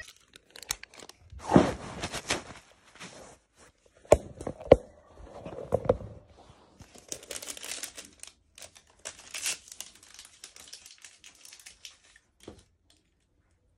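Close handling noise: sharp knocks and rattles against a metal wire cage, with crinkling and rustling in between, loudest in the first five seconds and dying away near the end.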